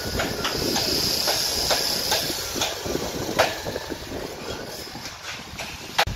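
Construction-site noise: a steady rumble with irregular sharp metallic knocks and clicks, and one stronger knock near the end. A thin high hiss fades out about two seconds in.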